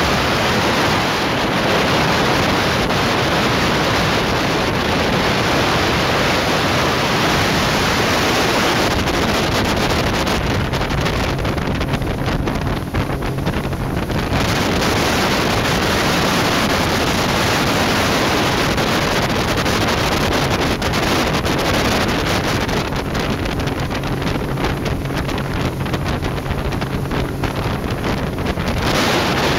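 Mercury F30 EFI four-stroke outboard motor pushing a small aluminium boat under way. Its steady engine note sits under water rushing past the hull and heavy wind buffeting the microphone.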